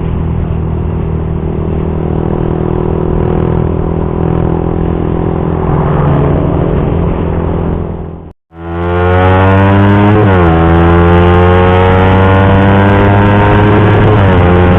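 Suzuki GSX-R150's single-cylinder four-stroke engine running through an R9 Misano racing exhaust, holding a steady note at speed. After a brief dropout about eight seconds in, it comes back louder and pulls hard, its pitch climbing and dipping twice at upshifts.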